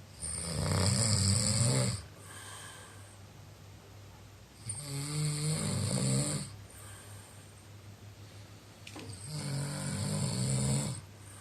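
A sleeper snoring: three long snores, each lasting about two seconds, coming roughly every four and a half seconds.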